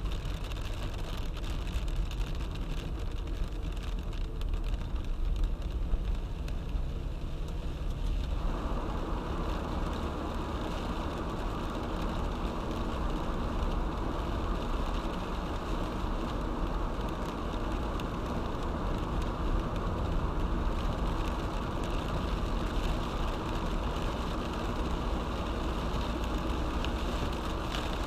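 A car driving in heavy rain: a steady low road rumble under the hiss of rain and wet tyres. About eight seconds in, the hiss suddenly grows louder and stays that way.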